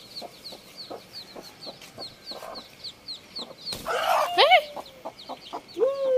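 Newly hatched country chicken chicks peeping steadily, about three short falling cheeps a second, with a mother hen clucking low. About four seconds in there is a burst of wing-flapping and a loud squawk as the broody hen flies at an intruder. Near the end a long, slightly falling call begins.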